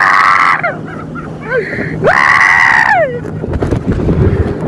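Banana boat riders screaming: a long high scream at the start and another about two seconds in, with a short yelp between, over rushing wind and water noise.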